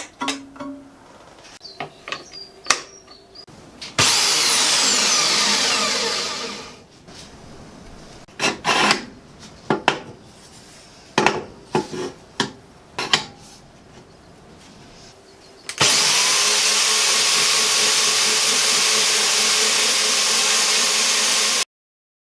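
Power saw used for cutting metal, switched on twice: the first run starts abruptly and winds down with falling pitch, the second spins up with a rising tone to a loud steady run and cuts off suddenly near the end. Sharp knocks and clanks of metal being handled come between and before the runs.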